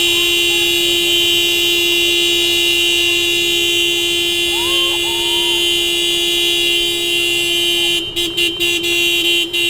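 Car horn held in one long unbroken blast, then broken into several quick short toots near the end before it stops.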